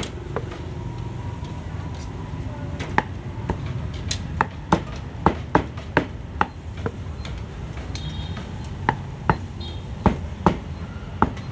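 Cleaver chopping food on a chopping block at a street-food stall: sharp, dry strikes at an uneven pace, in spells of about two a second, over a steady low rumble of market background noise.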